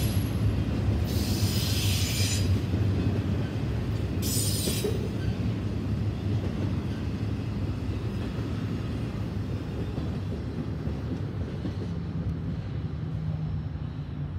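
Intermodal freight cars carrying trailers and containers rolling past: a steady low rumble of steel wheels on rail, with two brief high wheel squeals about a second in and again about four seconds in. The rumble grows gradually quieter toward the end as the train moves away.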